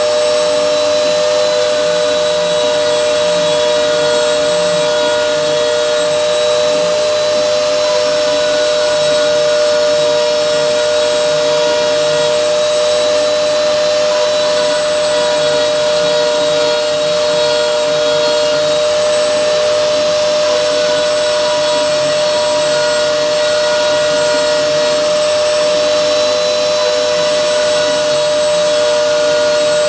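CNC router spindle running while milling a fixture base, a steady high whine that holds its pitch the whole time.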